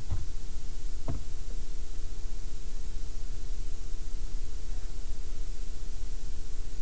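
Steady electrical hum and hiss from the recording setup, with a short click right at the start and another about a second in, as the login is submitted.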